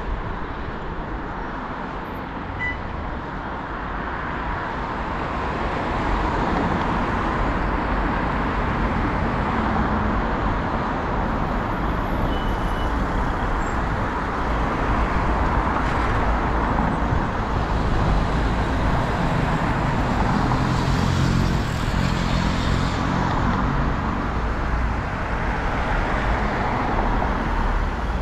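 Steady rush of wind buffeting a bicycle-mounted action camera's microphone, with the low rumble of bicycle tyres rolling along a path while riding.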